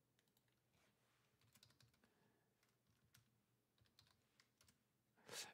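Faint keystrokes on a computer keyboard: a scattering of short clicks as a word is typed, otherwise near silence.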